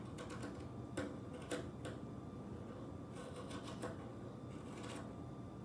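Scissors snipping through bunches of yarn strands: a series of short, crisp snips, a few single ones and then a quick run of cuts about three seconds in.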